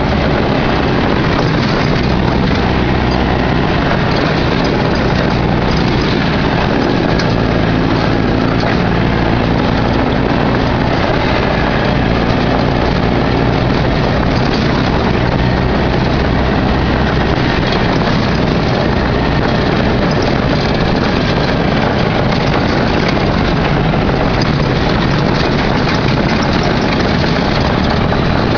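Off-road buggy driving along a rough dirt trail, its engine running steadily under a loud, even wash of drivetrain and trail noise.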